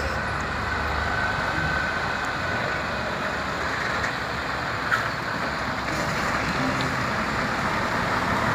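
Mercedes-Benz car-transporter truck, loaded with cars, driving past on a street: steady engine and road noise.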